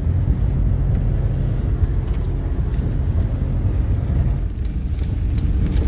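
A vehicle driving along: steady low rumble of engine and road noise, with no distinct blasts.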